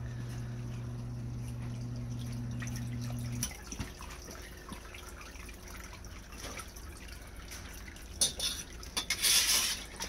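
Cast-iron submersible sump pump running with a steady low hum, cutting off suddenly about three and a half seconds in, while the pit is flushed of an iron-ochre cleaning solution. After it stops, water drips and trickles in the pit, and near the end there is loud splashing of water.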